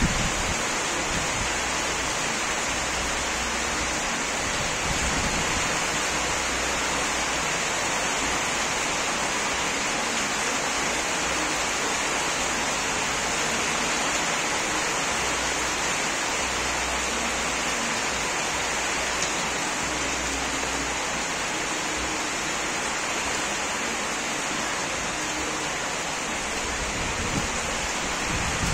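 Steady rain falling, an even hiss that keeps on without a break.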